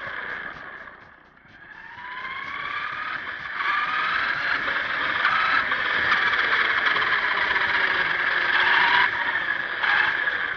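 Drivetrain of a 1/10-scale HSP RC monster truck whining, heard close up from the onboard camera. It eases off and goes quiet about a second in, then its pitch glides up as the truck speeds away, and it stays loud with pitch rising and falling as the throttle changes.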